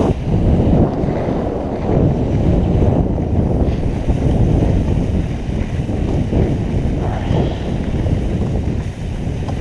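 Wind buffeting a GoPro's microphone during a downhill ski run: a steady low rumble, with the skis scraping over icy, granular snow.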